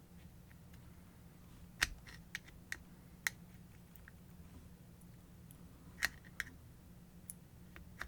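Scattered small metal clicks and taps, the loudest about two seconds in and about six seconds in, from the gear and key of an angle grinder's gearbox being handled while the keyway slot in the gear is sought. A low steady hum lies under them.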